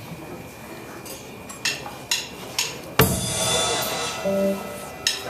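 Live rock band starting a song: several sharp drum clicks about half a second apart count it in, then a loud cymbal crash about three seconds in as the band comes in, with a few short bass notes after.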